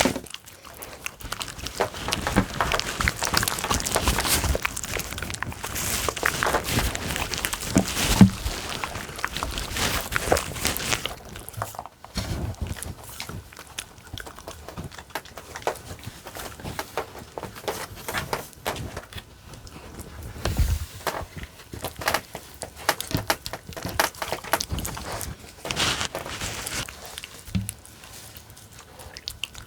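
Small dogs eating fresh cooked dog food: dense small clicks, licking and chewing noises, with paws and bowl knocking about.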